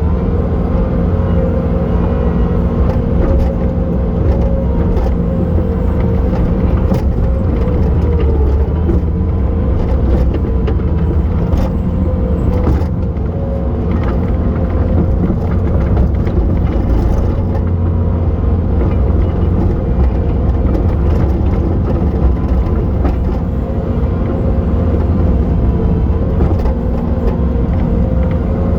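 Bobcat T870 tracked skid steer's diesel engine running steadily under load, its pitch sagging briefly about a third of the way in and again near the end, with scattered small knocks.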